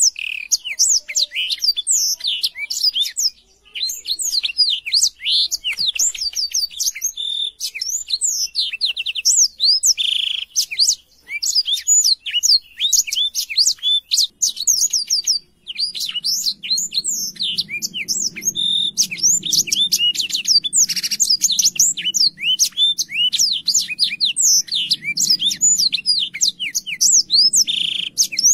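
Black-throated canary (blackthroat) singing a long, fast, nearly unbroken song of high chirps, sweeping whistles and trills, with brief breaks about three, eleven and fifteen seconds in.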